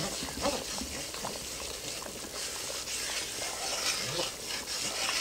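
Oil-and-flour roux sizzling in a skillet as it browns, stirred and scraped around the pan with a wooden spoon, with small scrapes and taps through the hiss.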